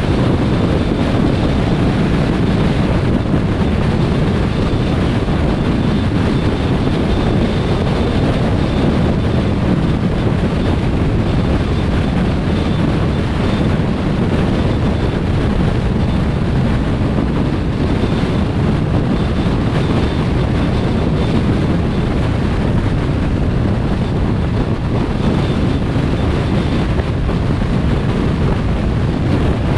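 Steady road noise of a car driving: tyres and wind in a continuous rumble, with a faint high whine at times.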